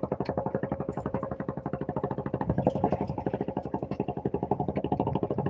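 Fishing boat's engine running at idle, a fast, even chugging.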